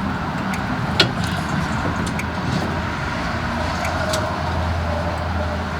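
Steady road traffic noise with a low hum, broken by a sharp click about a second in and a few faint ticks.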